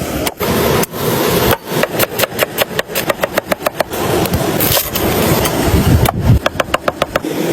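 Knife chopping quickly on a wooden cutting board, in two runs of sharp, evenly spaced strokes, about five a second, over a steady background hiss.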